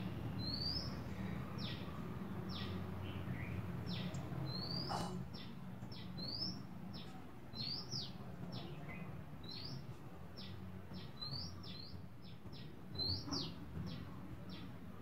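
Small birds chirping: short high chirps, some dropping and some rising in pitch, about one or two a second, over a faint low steady hum.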